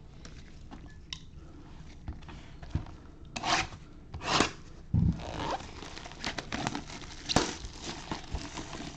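Bowman baseball card box and pack wrappers being torn open and crinkled: a few sharp tearing swishes around the middle, then scattered rustles and small clicks of the packaging being handled.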